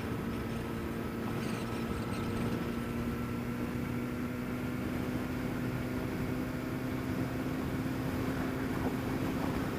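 Honda CBR motorcycle riding at a steady speed: the engine holds an even note under a steady rush of wind and road noise.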